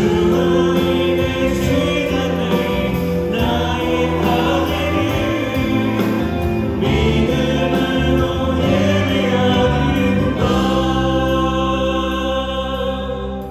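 Praise team singing a Christian worship song together, accompanied by keyboard, electric guitar, bass guitar and drums, getting quieter near the end.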